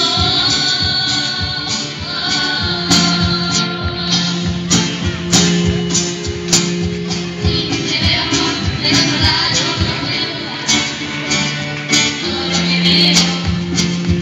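Several acoustic guitars strumming chords together while a youth choir sings into microphones.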